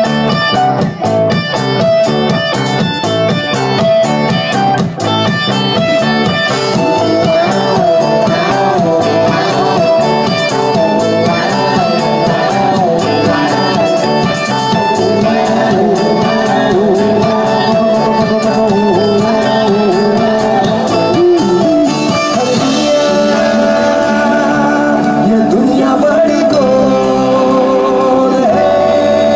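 Live band playing amplified music: guitars, including a strummed acoustic guitar, over drums, with a man singing.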